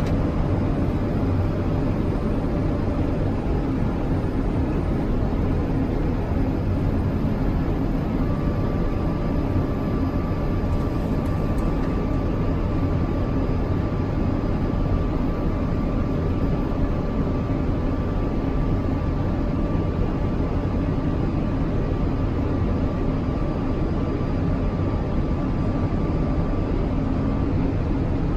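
Steady jet airliner cockpit noise on approach: engine and airflow hum, with a thin steady tone joining about eight seconds in and stopping just before the end.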